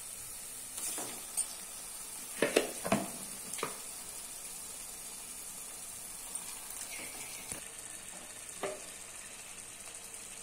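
Onion-tomato masala sizzling steadily in hot oil in a steel pot as marinated chicken pieces are tipped in, with a few short knocks and clunks, the loudest about two and a half to three seconds in.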